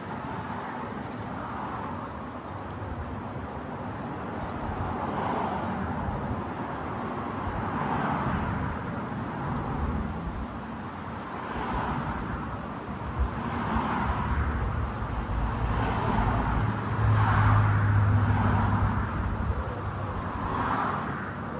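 Road traffic noise, with cars passing one after another and a heavier engine hum building near the end.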